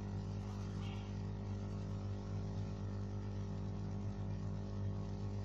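Steady electrical hum with a light background hiss: the recording's room tone, with no other sound standing out.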